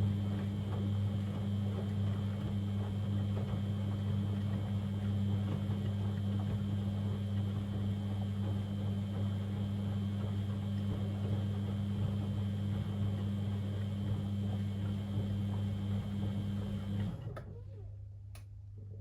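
Beko WML 71433 NP washing machine running with a steady hum that cuts off suddenly about seventeen seconds in, followed by two sharp clicks.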